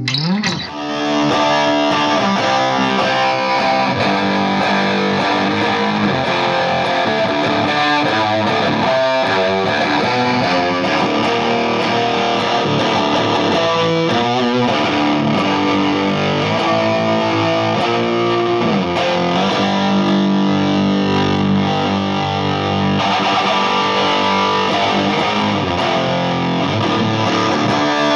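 Electric guitar played through a Volition Amps Vintage Fuzz pedal: distorted, fuzzy chords and sustained notes at a steady, loud level. A quick pitch slide up about half a second in.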